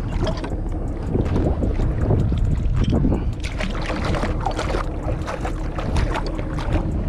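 Wind buffeting the microphone, with water splashing and dripping as a wet anchor rope is hauled in hand over hand beside a kayak, giving many small irregular splashes and drips.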